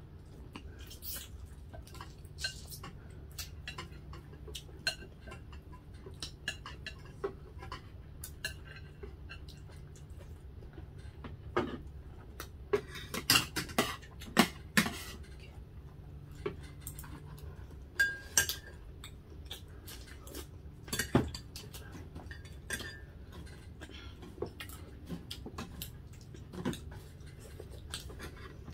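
Spoons and forks clinking and scraping on plates during a meal, in scattered light taps with a cluster of louder clinks about halfway through.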